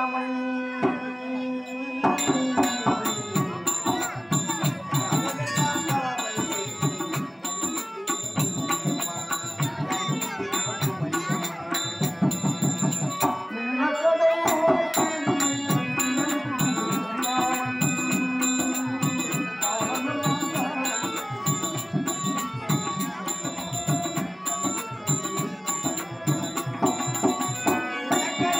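Tamil drama-troupe music: a harmonium holds a steady note, then a fast drum beat with ringing small cymbals comes in about two seconds in and carries on under the harmonium melody.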